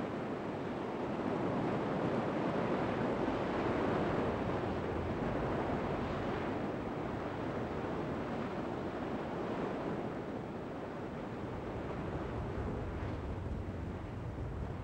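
Heavy surf breaking and washing up the beach, a steady rushing noise that swells a few seconds in, with wind buffeting the microphone as a low rumble underneath.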